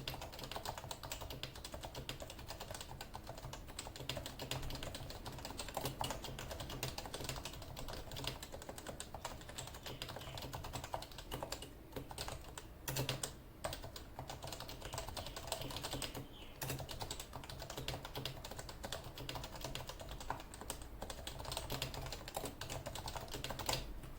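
Continuous fast typing on a Leopold FC660C keyboard with 45 g non-silent Topre electro-capacitive switches, a dense run of keystrokes. A few strokes are louder than the rest, and there are a couple of brief pauses.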